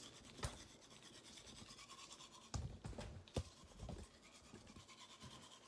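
Teeth being brushed with a manual toothbrush: faint, quick scrubbing strokes, with a few short knocks about halfway through.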